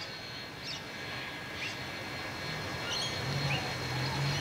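Birds chirping in short rising calls, while a low rumble from the approaching BB18¼ class steam locomotive grows from a little past halfway and becomes the loudest sound.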